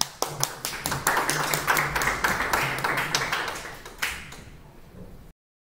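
Audience applause, many hands clapping, thinning out over a few seconds; the sound cuts off suddenly a little after five seconds in.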